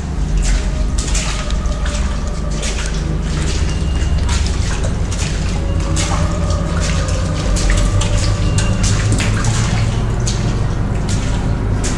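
A steady low rumble with many irregular sharp clicks over it and a few faint held tones.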